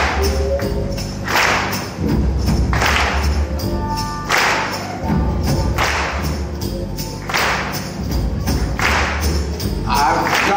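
Live jazz-blues band playing an instrumental intro on piano, upright bass and drums, with a sharp bright hit about every second and a half. A man's voice starts singing near the end.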